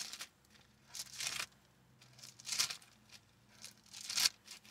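Paper rustling in four short bursts about a second apart: pages being turned while a Bible passage is looked up.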